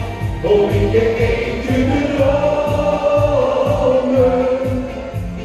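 Music with voices singing together over a steady beat.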